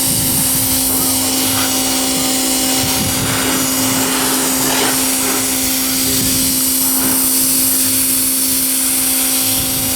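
Pressure washer running steadily while its spray strips grime off a truck's paint, a constant motor-and-pump hum under a dense hiss of spraying water.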